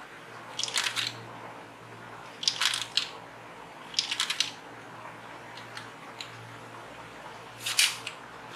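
Clicking and rattling of hard plastic as small plastic balls are pushed into a toy ball-shooting revolver's loader and the gun is handled. The clicks come in short, quick bunches about every one to two seconds, with a few single ticks between, and the loudest bunch comes near the end.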